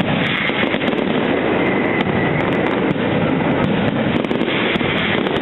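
Aerial firework shells bursting in a dense, continuous barrage, a steady rumble full of many sharp cracks and crackles.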